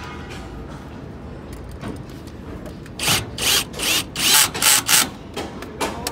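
Cordless drill-driver run in a string of short loud bursts, about two or three a second, starting about halfway in, driving terminal screws in an electrical panel.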